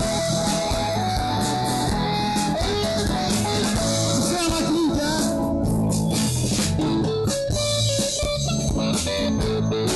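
Live blues-rock band playing an instrumental passage: an electric guitar plays a lead line over bass and strummed guitar, with notes bent up and down about halfway through.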